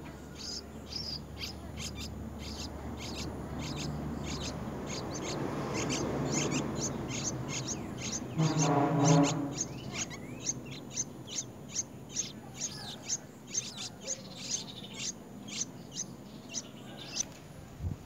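Bulbul nestlings giving short, high begging chirps over and over, about two a second, as they gape for food. A low droning noise builds through the first half and peaks in a steady low tone lasting about a second midway.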